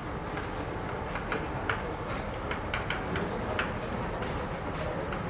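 Chalk writing on a chalkboard: a run of short, irregular taps and scratches as words are written, over steady low room noise.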